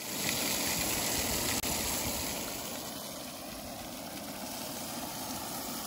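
Portable propane stove burner running under a foil packet of grouper fillets: a steady hiss, a little louder in the first couple of seconds.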